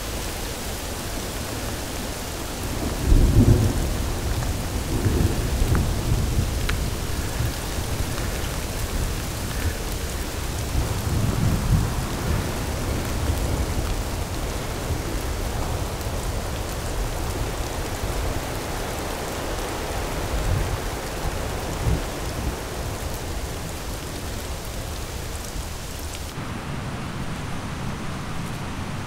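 Steady rain with rolling thunder: a loud rumble about three seconds in and several softer rumbles after it. Near the end the rain hiss cuts off, leaving a quieter outdoor ambience.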